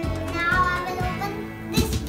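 Background music with a steady beat, cut off abruptly by a short burst of noise near the end.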